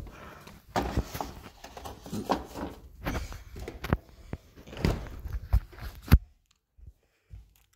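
Handling noise from a phone camera being carried and moved about: irregular rustles and knocks, ending with a sharp knock about six seconds in, then near silence.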